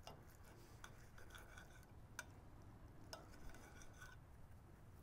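Knife and fork cutting through a cooked ribeye steak on a ceramic plate: faint sawing, scraping strokes with a few light clicks of metal on the plate.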